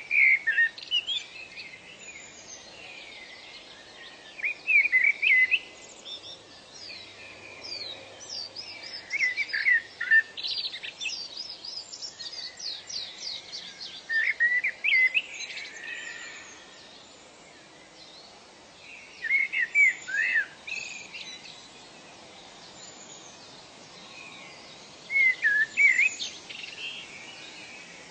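Birdsong: one bird repeats a short phrase of quick, sweeping notes about every five seconds. Thinner, higher chirps from other birds fill the gaps, over a faint steady background noise.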